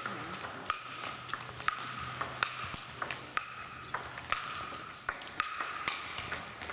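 Table tennis ball clicking sharply off bats and the table, many hits at irregular spacing, several a second, each with a short ring in the echoing hall.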